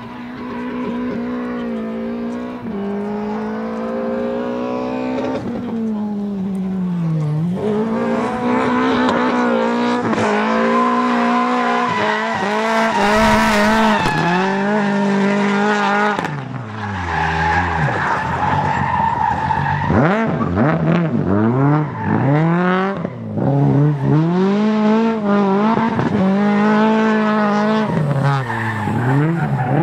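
Rally car engine worked hard through a stage, its pitch climbing and dropping again and again as it revs through the gears and lifts for corners, with tyres squealing as the car slides.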